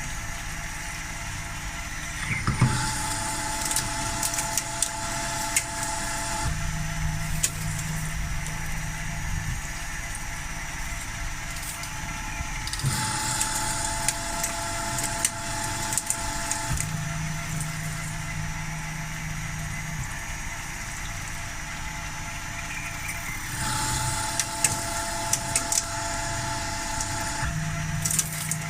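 CNC milling machine at work, its spindle running with steady tones. The cutter makes repeated passes about every ten seconds, each with a rise in hiss and scattered sharp clicks.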